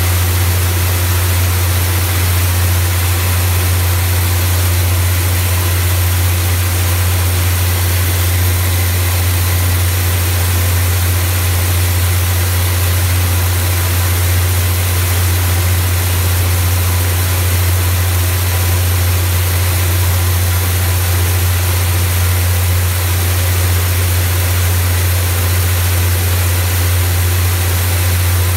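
Rice milling machine running with a steady low hum while milled rice streams from its chute into a paper bag with an even hiss.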